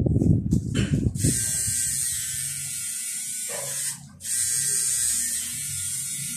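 Electric tattoo machine buzzing steadily as the needle works ink into skin. It stops briefly about four seconds in, then starts up again.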